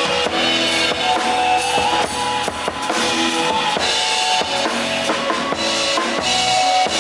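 Music with a full drum kit playing a steady beat, bass drum and snare, under sustained pitched instrument notes.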